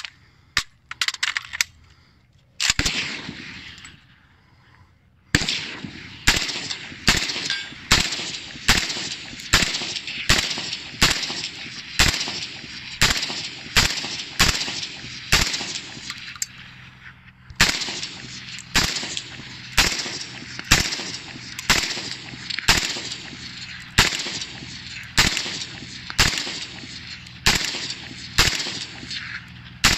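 AK-74M-pattern rifle fired shot by shot in semi-automatic, at an even pace of about one shot every three-quarters of a second, with a brief pause about two-thirds of the way through. Before the steady firing, a few sharp clicks in the first two seconds and one single shot.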